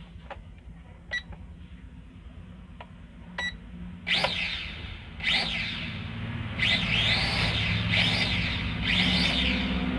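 A few sharp clicks and short beeps, then a small toy drone's propeller motors revving up and back down again and again. Each rev is a brief whine that rises and falls in pitch, about once a second.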